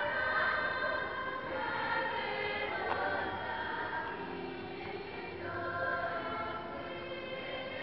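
Children's choir singing, with several voices holding long sustained notes and moving from chord to chord.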